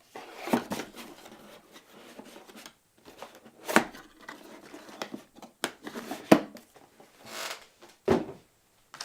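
Motherboard accessories and packaging being handled and set down: scattered light knocks and clicks, with a brief rustle about seven and a half seconds in.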